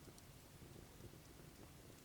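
Faint, sparse crackling of a burning wood campfire: a few soft snaps over a low, steady background hiss.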